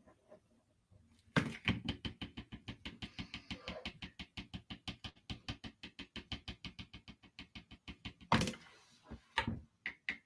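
Black drawing pen scratching across paper in quick, even hatching strokes, about six a second, starting a little over a second in, with two louder scratches near the end.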